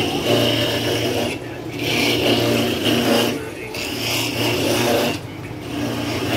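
Motorised coconut grater running, its sound swelling and easing off in a regular cycle about every two seconds over a steady electric hum.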